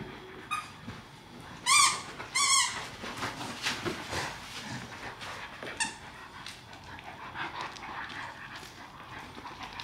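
Two Staffordshire bull terriers, an adult and a puppy, playing tug-of-war over a plush toy: scuffling and mouthing noises, with two loud, high squeals about two seconds in and a shorter one around six seconds.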